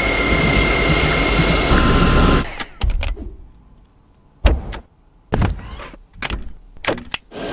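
Vacuum cleaner motor running with a steady rushing sound and a high whine for about two and a half seconds, then cutting off. A series of sharp clicks and knocks follows.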